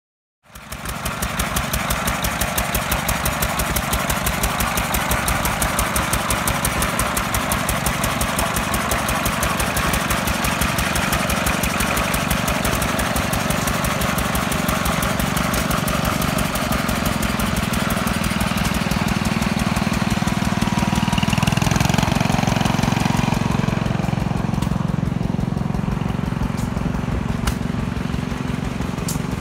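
Small engine of an antique steel-wheeled garden tractor running steadily with a regular firing beat as the tractor is driven. It gets a little louder about two-thirds of the way through, then eases off slightly.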